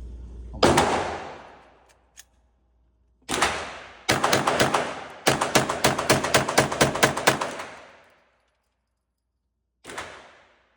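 Smith & Wesson .22 pistol firing: a single shot, another a few seconds later, then a rapid string of about a dozen shots fired several a second, and one fainter shot near the end. Each shot rings off with a short echoing tail.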